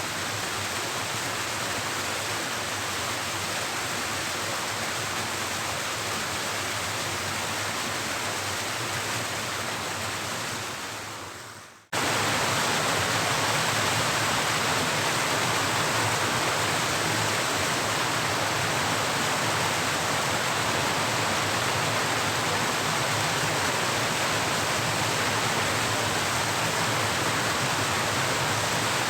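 Steady rush of flowing river water, an even hiss. It fades out about twelve seconds in, then comes back suddenly and somewhat louder.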